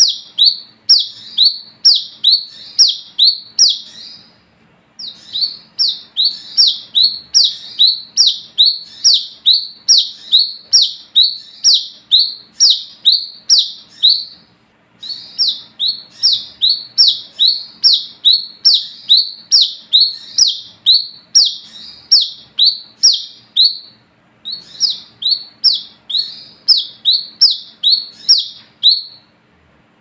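Male brown-throated sunbird (kolibri kelapa, 'wiceh') calling a sharp, high repeated 'wiceh' note, about two a second, in long runs broken by short pauses about four, fourteen and twenty-four seconds in.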